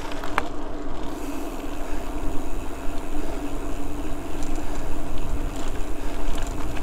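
Mountain bike riding noise: wind on the microphone and tyres rolling, with a steady hum and a few light ticks.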